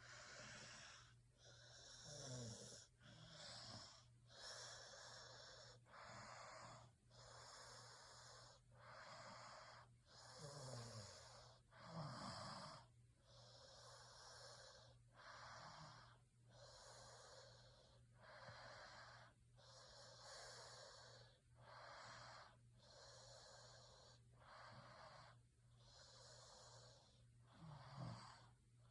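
A sleeping person snoring: noisy, wheezy breaths in and out in an even run, about one a second, with a few short low snorts scattered through.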